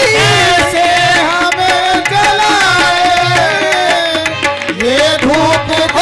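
Manqabat (Urdu devotional song) music: a melody of long, wavering held notes with rising glides, over a steady drum beat.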